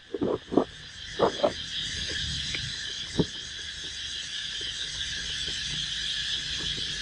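Cardboard box being handled and opened, with a few sharp knocks and rustles in the first second and a half and one more about three seconds in. Behind it is the steady high chirring of insects.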